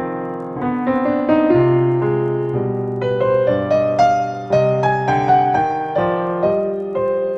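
Solo piano music, slow and gentle, with single notes and chords struck one after another and left to ring.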